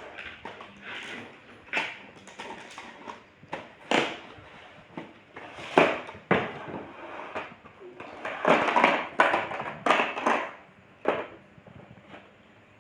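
Toy packaging being handled and opened: irregular rustles and knocks, with a dense stretch of handling about eight to ten seconds in.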